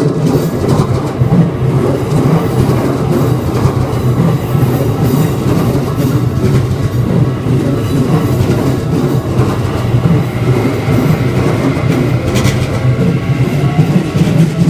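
A Keikyu electric train running past at close range over the level crossing: a loud, steady rumble of wheels on the rails.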